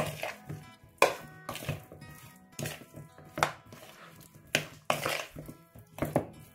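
Spoon stirring and tossing chicken wings in a plastic mixing bowl: irregular knocks and scrapes against the bowl, roughly one a second, as the wings are coated in a thick marinade. Soft background music runs underneath.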